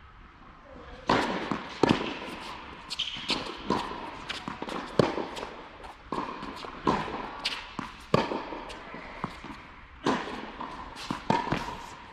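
Tennis rally on an indoor hard court: a serve and then a string of sharp racket hits and ball bounces, each ringing out in the echo of the big hall.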